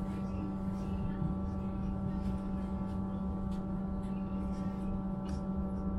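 Electric passenger train running, heard from inside the coach: a steady low electric hum with several steady higher whining tones above it, over low wheel-on-rail rumble and a few faint clicks.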